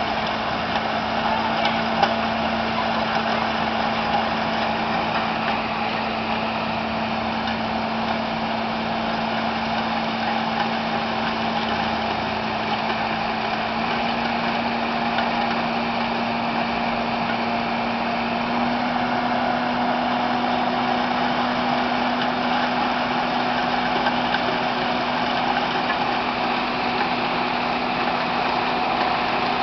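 Skid steer loader with a snow blower attachment running steadily. The engine's pitch steps up slightly twice, once about halfway through and once a few seconds later.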